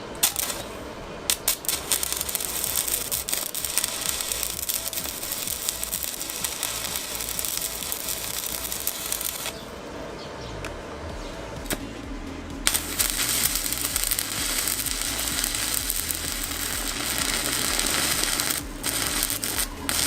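Electric arc welding: the steady crackling hiss of the arc as signal-light brackets are fully welded to a steel motorcycle frame. It comes in two long runs, with a pause of about three seconds near the middle and a short break near the end.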